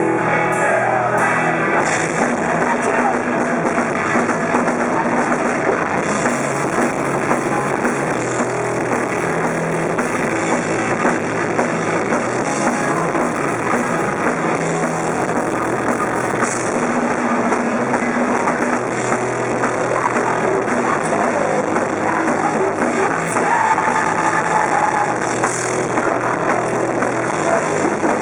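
A punk rock band playing live and loud, with electric guitars, bass guitar and a drum kit in a dense, continuous wall of sound.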